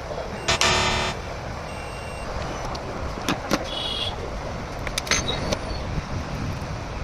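Steady background noise like road traffic, with a short pitched tone about half a second in and a few sharp clicks later on.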